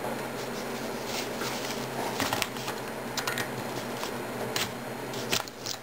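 A few small metal clicks and taps as a pin is worked out of a small spring-loaded rifle part with a punch, over a steady low hum.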